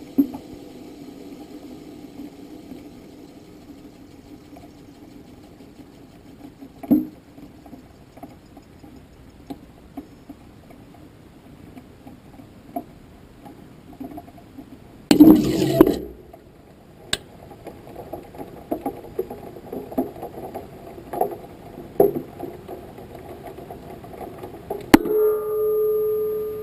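Onboard sound from a camera mounted on the outer skin of a high-altitude amateur rocket: a low steady hum with scattered knocks and clicks, and a loud rattling burst about halfway through. Near the end there is a sharp bang as the booster stage separates, followed by a short steady tone.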